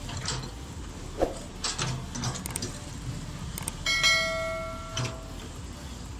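Subscribe-button sound effect: a couple of quick mouse clicks, then a bell chime that rings out and fades over about a second and a half, about four seconds in. Under it, the steady low running of a crawler excavator with a few short clanks.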